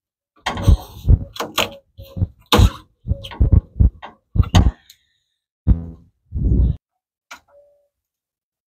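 A rubber upper radiator hose is twisted and worked by hand on the radiator neck to break it loose. It makes a run of irregular short knocks, rubs and clunks, which thin out after about seven seconds.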